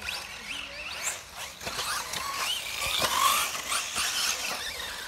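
Several 1/8-scale electric RC buggies running on a dirt track, their motors whining in pitches that rise and fall as they speed up and slow down, over a hiss of tyres on dirt.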